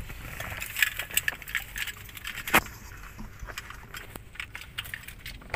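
Low rumble inside a car cabin, with scattered light clicks and taps; one click about two and a half seconds in is louder than the rest.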